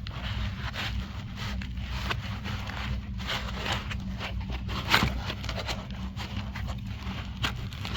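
Packaging and door-hardware parts being handled: rustling, scraping and small clicks, with a sharper knock about five seconds in, over a steady low hum.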